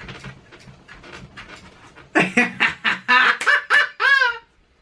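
A man's excited cackling, clucking cries without words: a quick run of short, loud calls about two seconds in, ending in one falling cry.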